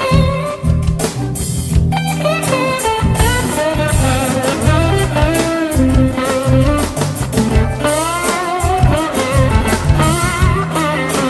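Blues-rock band music: an electric guitar lead with bending, sliding notes over drums and a bass line, with an electric bass played along.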